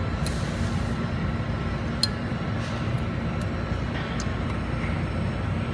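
Steady mechanical drone with a low hum, with a couple of short metallic clicks as set screws on the pump shaft are tightened.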